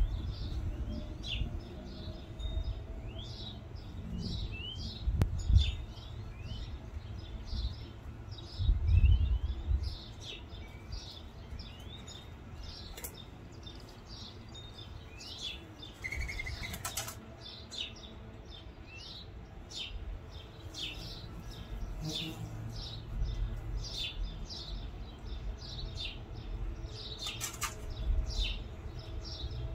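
Small birds chirping in short, repeated high notes throughout. Low rumbling bumps come about five and nine seconds in, and brief rustling bursts come near the middle and near the end.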